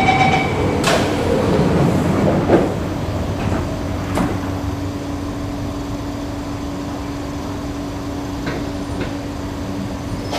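Electric MRT train's door-closing chime ending, then its sliding doors shutting, with the loudest knock about two and a half seconds in. The stationary train then keeps up a steady hum with one low held tone.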